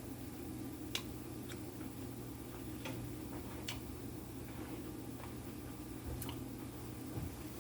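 A handful of sharp, faint clicks at uneven intervals over a steady low hum.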